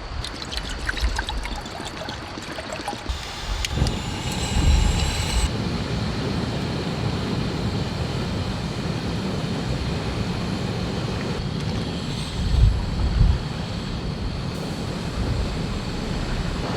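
Wind blowing in a steady rush, with two strong gusts buffeting the microphone. A run of small clicks and taps comes in the first few seconds.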